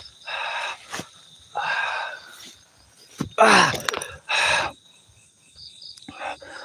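A man's voice in short murmured bursts that the recogniser could not make into words; the loudest, about three seconds in, falls in pitch. Steady high chirring of crickets or other night insects runs underneath.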